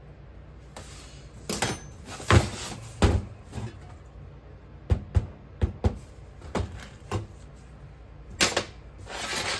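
Irregular knocks and clacks from a sand-casting flask and tools being handled while a sand mould is worked, about a dozen separate sharp hits. A brief rustle comes near the end.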